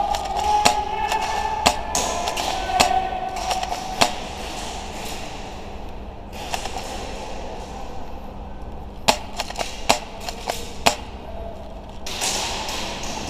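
Scattered single airsoft gun shots, sharp irregular cracks a second or more apart, clustered in the first few seconds and again in the later part, with a steady tone under the first three seconds.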